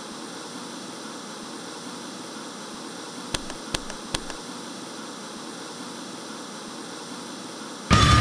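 Television static: a steady, even hiss, broken by a few short clicks about three to four seconds in. Loud, heavy music cuts in suddenly near the end.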